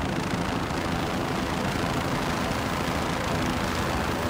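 Helicopter running close by: a steady, dense rotor and turbine noise with a low throb.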